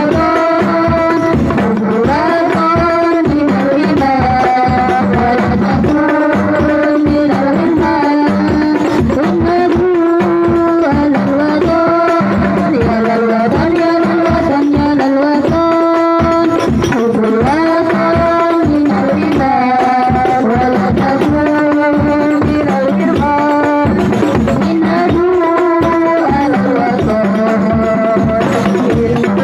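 Sholawat devotional song: a woman's voice singing a melody into a microphone over a hadrah ensemble of rebana frame drums beating a steady, busy rhythm.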